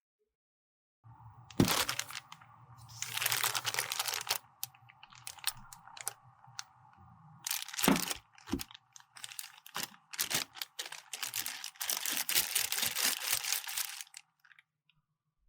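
Irregular crackling, crunching and scraping of makeup being crushed and broken apart, starting about a second in and stopping shortly before the end.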